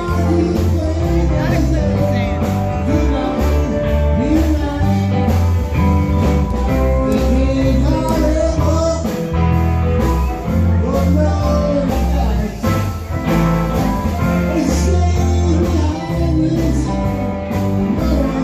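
Live rock band playing at a steady loud level: electric guitars, drum kit and keyboard.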